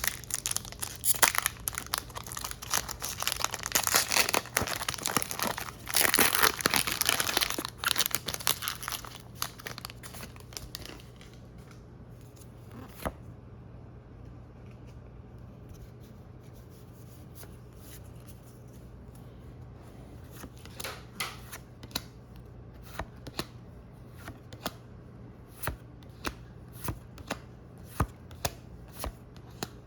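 Foil wrapper of a Pokémon booster pack crinkling and tearing open for the first ten seconds or so. Later, a run of short snaps as the trading cards are flicked through one by one.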